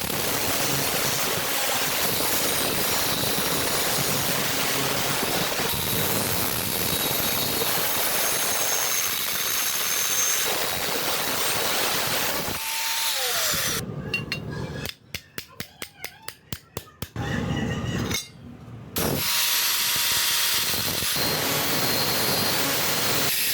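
Power tool running steadily. After about twelve seconds the sound breaks up: a tone falls away, rapid regular clicks follow for a couple of seconds, and the tool then runs on again.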